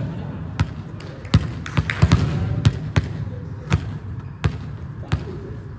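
Volleyballs being struck and bouncing on a hard court floor in a large, echoing sports hall: about eight sharp, irregularly spaced smacks.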